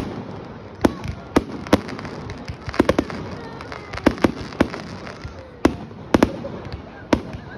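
Fireworks display: over a dozen sharp bangs at uneven intervals over a steady crackle, with a few faint whistles between them.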